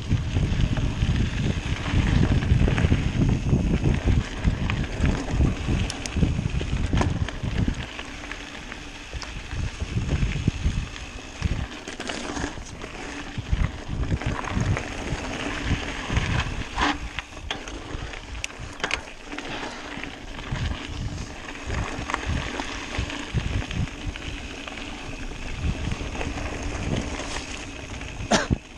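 Mountain bike riding a dirt singletrack: tyres rumbling over the ground and the bike rattling, with sharp clatters over bumps here and there. Wind buffets the microphone, heaviest for the first eight seconds or so.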